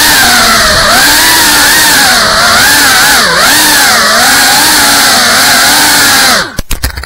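GEPRC Cinelog 35 quadcopter's brushless motors and propellers whining at close range, the pitch wavering up and down with the throttle. Near the end the whine falls away through a few sharp knocks and stops as the drone touches down and the motors cut.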